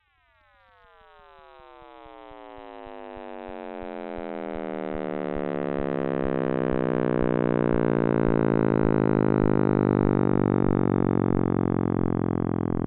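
Synthesized sonification of the Big Bang: a dense stack of tones gliding steadily downward in pitch, swelling up out of silence over the first several seconds and then holding.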